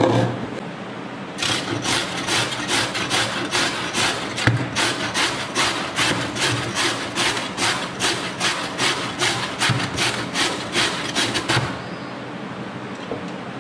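Raw carrot grated on a stainless steel box grater: rhythmic rasping strokes, about two or three a second, that stop shortly before the end.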